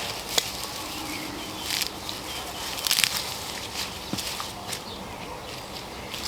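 Rustling and crackling of kumara (sweet potato) vines and leaves being pulled and handled, with irregular short snaps. The loudest crackles come about three seconds in.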